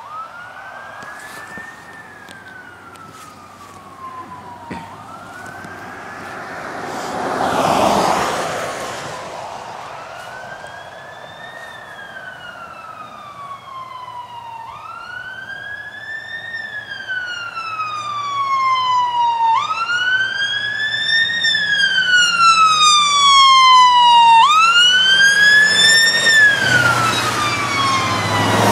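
Fire department brush truck's wail siren approaching and passing: each cycle rises quickly and falls slowly, repeating about every five seconds and growing louder as it nears. A car goes by about eight seconds in with a rushing swell. Near the end the truck's engine rumble and tyre rush peak as it passes.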